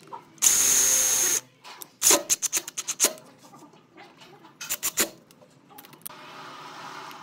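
Cordless drill driving wood screws through a faceplate into a wooden block. A loud whine of the motor lasts about a second, followed by two runs of sharp rapid clicks and a quieter steady motor hum near the end.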